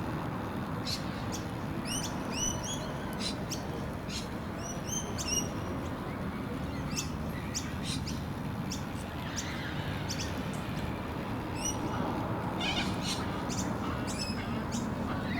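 Small birds chirping over and over, short sharp hooked calls coming every second or so, over a steady low background noise.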